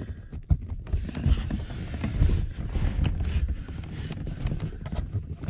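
Rustling and low rumbling handling noise with a few soft knocks, as a car seat cushion is pressed down by hand and its cover's retaining clip is worked into place underneath.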